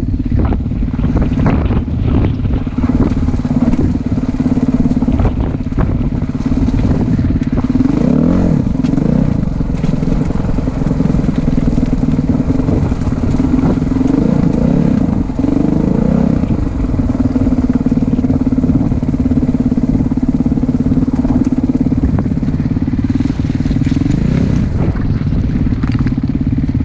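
Off-road vehicle engine running steadily under way, its pitch rising and falling with the throttle several times, over a constant rumble of the ride.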